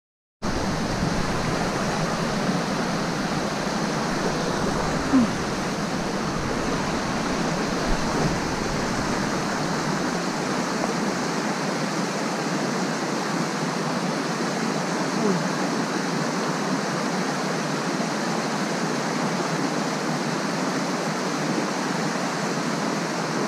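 Shallow rocky mountain creek rushing steadily over stones and small riffles.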